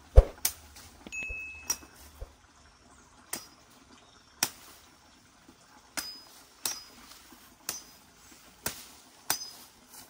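Machete chopping at a long, freshly cut stalk of soft wood: about ten sharp strikes at irregular spacing, some followed by a brief metallic ring from the blade.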